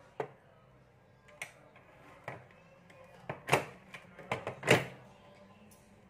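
Scattered clicks and knocks of metal alligator clips and wires being handled against a small push button switch and the tabletop, about eight in all, the loudest around three and a half and just under five seconds in.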